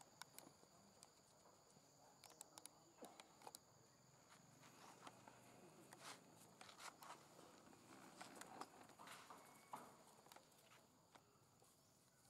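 Near silence: a faint steady high insect drone, with scattered soft clicks and rustles as macaques shift about on dry leaf litter.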